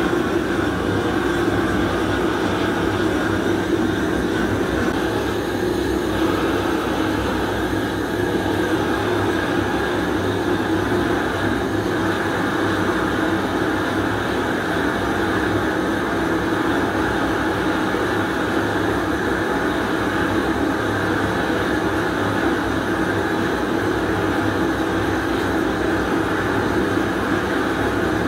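Large propane torch burning with a steady, unbroken rush of flame, heating a cast-iron pan of zinc to melt it.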